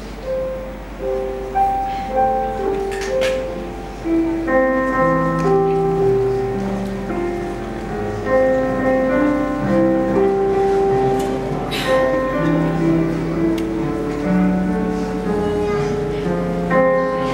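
Slow instrumental piano music: a gentle melody of held notes and chords over a low bass line, with no singing.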